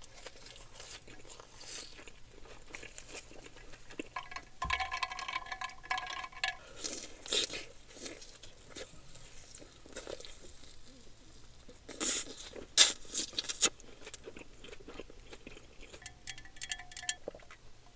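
A person biting into and chewing crunchy food close to the microphone, with a run of sharp, loud crunches about twelve to fourteen seconds in.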